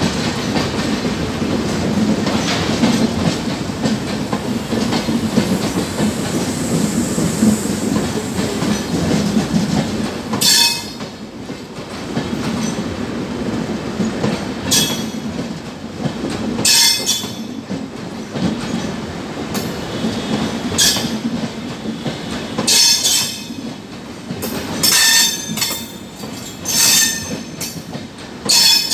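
LHB passenger coaches rolling past on the track: a steady rumble of wheels on rails for about the first ten seconds, then quieter running broken by short, high-pitched metallic wheel squeals every second or two, coming more often near the end.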